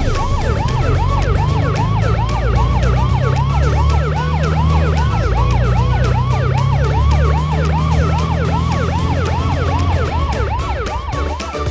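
Ambulance siren sound effect: a quick rising whoop repeated about two and a half times a second, over a steady low rumble.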